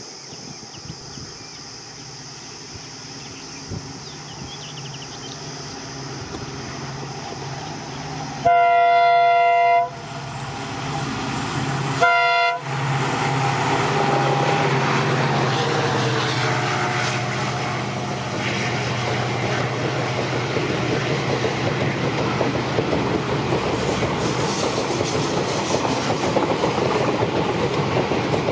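EMD WDP4D diesel locomotive approaching, its engine humming and growing louder. About a third of the way in it sounds its horn in one long blast, then one short blast a few seconds later. It then passes close by hauling its coaches, engine noise and wheels clattering over the rail joints.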